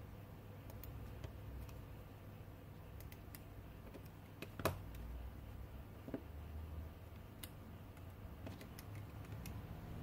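Scattered light clicks and taps from handling an opened iPhone 6 and its display on a work mat, with one sharper click about halfway through.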